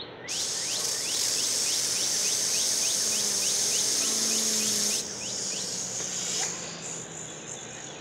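Garden-hose spray nozzle at full pressure, a loud steady hiss of the water jet driving a fidget spinner; it cuts off about five seconds in, leaving a fainter high whir for a couple of seconds.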